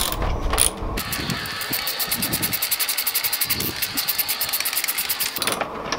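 Ratchet wrench clicking rapidly and evenly, about ten clicks a second, as a bolt is run in; the clicking starts about a second in and stops shortly before the end.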